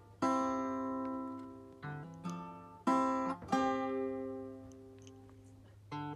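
Background music: an acoustic guitar strumming chords, each chord struck sharply and left to ring out, a new one every half second to a second.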